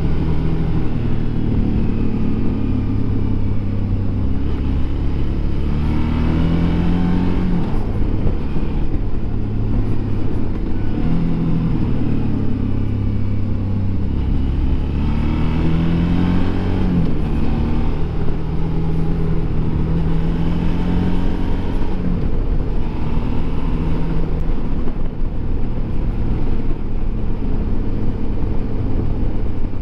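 Suzuki V-Strom DL650 XT's V-twin engine running on the move, its pitch rising and falling several times as the throttle opens and closes, over a heavy low wind rumble on the onboard microphone.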